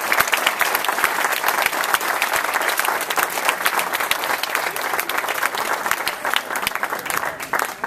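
Audience applauding: many hands clapping steadily, dying down near the end.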